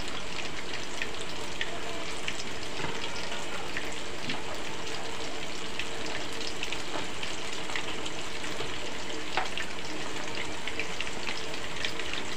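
Battered banana slices deep-frying in hot oil in a wok: a steady sizzle with many small crackling pops.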